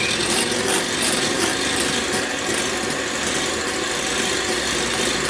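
Electric hand mixer running steadily on a low speed, its twin wire beaters whisking chilled, partly frozen cream in a glass bowl at the start of whipping.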